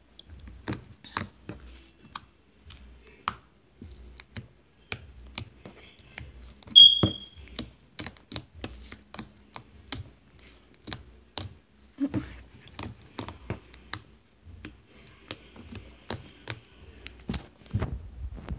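Slime being poked and squeezed by hand, making quick, irregular sticky clicks and pops. A short, high squeak about seven seconds in is the loudest sound.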